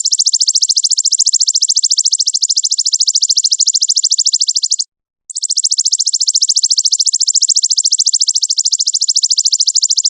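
A very fast, evenly repeated, high-pitched trilling call played as a masteran recording for training songbirds. It comes in two long runs, broken by a short pause about five seconds in.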